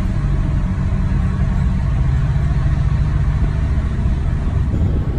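Steady low rumble of a car's engine and tyres on pavement while driving at an even speed, heard from inside the cabin.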